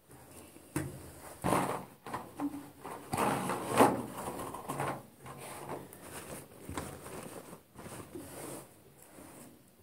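Handling noises of small plastic lidded pots and a plastic bag: irregular clicks, knocks and rustles, loudest a little under four seconds in.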